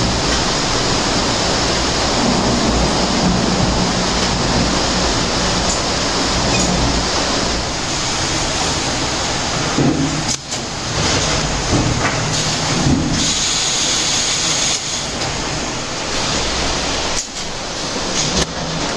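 Loud, steady din of fish-processing machinery on a trawler's factory deck: conveyors and an automatic packing machine for frozen fish blocks running, with a low hum underneath. The noise dips briefly a couple of times.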